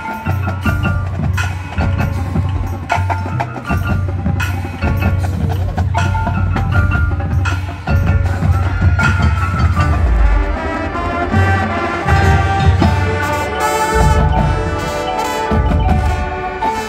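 High school marching band playing its field show live: a percussion-led passage of rhythmic mallet-keyboard and drum strikes over a steady low beat, with held band chords building up in the second half.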